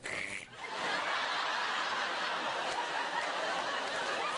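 Studio audience laughing, a dense, steady wave of laughter that builds up within the first second.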